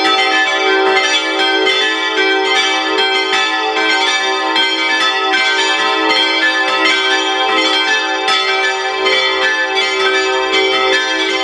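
Full peal of five Rincker bronze church bells, tuned e'' g'' a'' c''' d''', ringing together with overlapping strikes.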